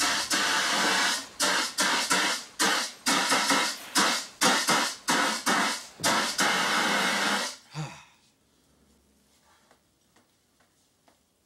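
Fire extinguisher spraying in a rapid series of loud hissing blasts, about a dozen in seven seconds, then stopping, followed by a few faint ticks.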